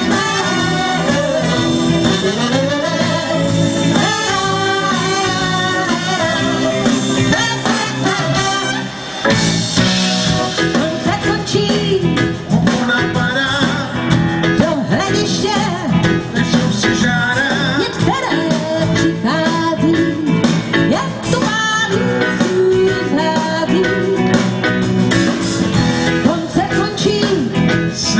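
Live rock band playing with a female lead vocal: drums, electric guitar and keyboards under a sung melody, with a brief drop in the band about nine seconds in.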